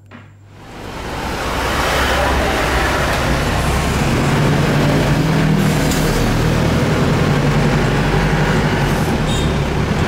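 Cabin noise inside a moving van: a steady rush of road and engine noise that swells up over the first second or two, then holds.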